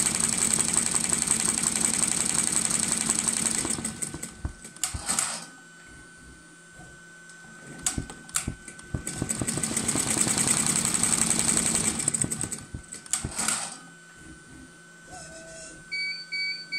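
Tajima Neo multi-needle embroidery machine stitching at speed with a rapid, even chatter. It stops about four seconds in, leaving a few separate clicks, runs again for about three seconds from around nine seconds, then stops once more. A few short electronic beeps sound near the end.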